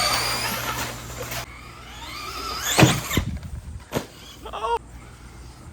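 Traxxas Stampede RC truck's electric motor whining in short throttle blips, each a quick rise and fall in pitch, about three seconds in and again, briefly, near the end.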